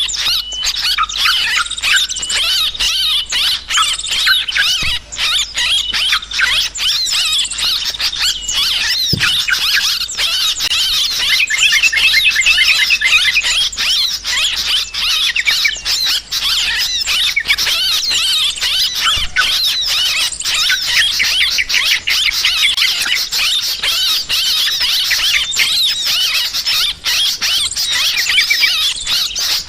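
Yellow-vented bulbuls (trucukan) calling in a dense, agitated chatter of many overlapping quick chirps. This is the noisy 'ribut' calling that is played as a lure to draw bulbuls in for trapping.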